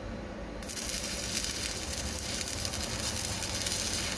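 Stick (arc) welding on steel angle iron: the arc strikes about half a second in and runs steadily.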